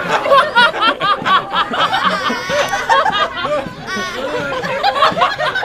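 Small crowd laughing, many voices overlapping, mixed with some chatter.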